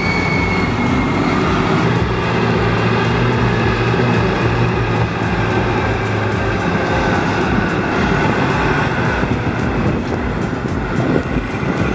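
Heavy earthmoving machine's diesel engine running steadily under load, with a low hum that holds level for about six seconds and then fades into the general engine noise.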